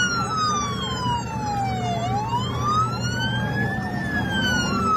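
Police car sirens: one wail sliding slowly down, up about two seconds in, then down again, with a faster yelping warble layered on at the start and near the end, over steady road noise.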